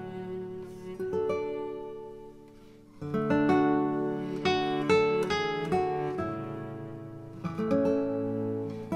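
Background music: acoustic guitar picking notes and chords. It fades down in the first few seconds and comes back louder at about three seconds in.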